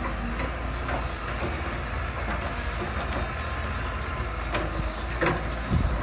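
Heavy machinery running with a steady low rumble, with a few sharp metallic knocks in the second half.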